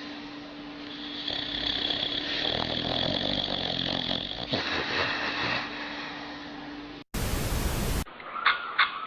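Sleeping dog snoring with a long, rough breath. About seven seconds in, a second-long burst of static hiss, then a few sharp clicks near the end.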